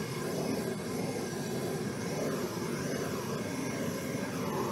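Handheld gas torch burning with a steady rushing noise, wavering slightly as the flame is passed over wet acrylic paint to bring up cells.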